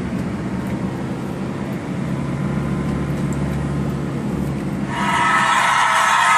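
Steady road and engine rumble inside a moving car's cabin. About five seconds in, loud music with a cheering crowd cuts in suddenly and the car rumble drops away.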